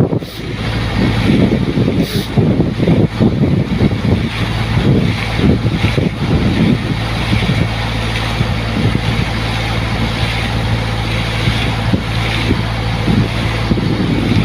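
Truck-mounted air compressor running for borewell cleaning: a steady low engine hum under irregular, surging rushes of noise.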